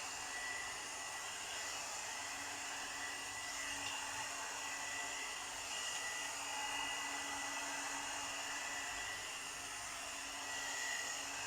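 Premio 3-in-1 blower brush (hot-air brush dryer) running steadily on its middle setting, a steady blowing hiss with a faint motor whine.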